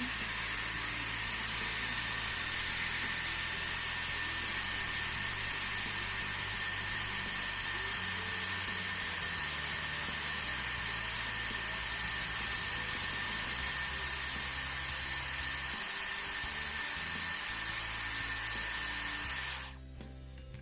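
Dyson Airwrap running: a steady rush of hot air with a high motor whine as a wrapped section of hair heats on the curling barrel. It cuts off near the end.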